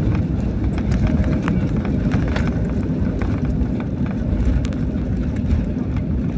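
Cabin noise of an Airbus A320-family airliner on its landing roll, heard from inside over the wing: a loud, steady rumble of the engines and the wheels on the runway, with light rattles, as the plane slows with its ground spoilers raised.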